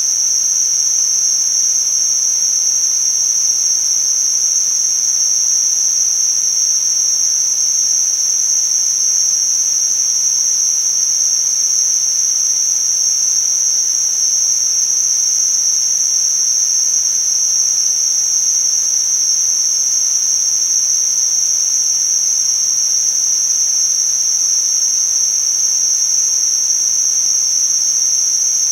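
Tinnitus-masking sound: a steady, high-pitched, narrow hiss that does not change, over a fainter wider hiss. It sounds something like a constant insect buzz.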